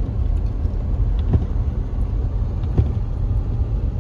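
Car driving on a road, its steady low road and engine rumble heard inside the cabin, with a few faint knocks.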